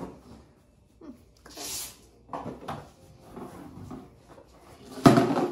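Recyclables being handled and put into a large bag: light knocks and a brief rustle, then a loud clatter about five seconds in.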